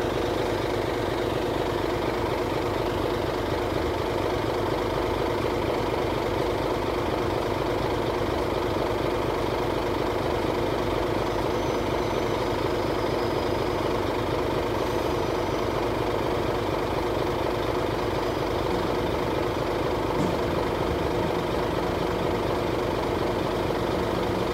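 Steady idling engine drone at an even level.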